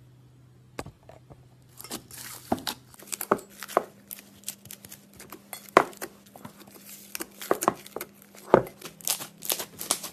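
Hands squishing and kneading white slime in a metal bowl, making a dense, irregular run of sharp crackles and pops from about two seconds in.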